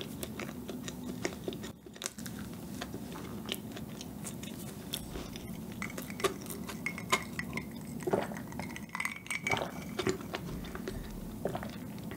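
Close-miked chewing of a soft chocolate pastry, with wet mouth clicks. Past the middle, ice clinks in a glass of iced coffee as it is lifted to drink.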